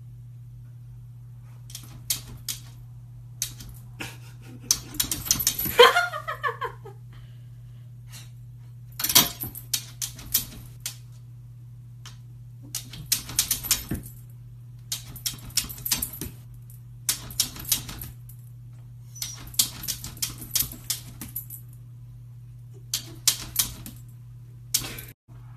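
A puppy's claws scratching and tapping at an oven's glass door in quick clattering bursts every second or two, with one short whine about six seconds in. A steady low hum runs underneath.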